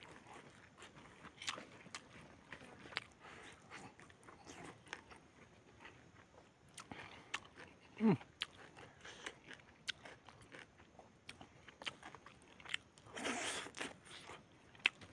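Close-up eating sounds of a man chewing chicken and rice by hand: irregular small clicks, smacks and crunches. About eight seconds in a short hum drops steeply in pitch, and near the end there is a brief louder rustling burst.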